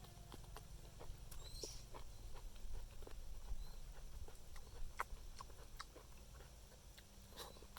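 Close-up eating sounds of a person chewing fried frog: scattered short mouth clicks and smacks over a low steady hum.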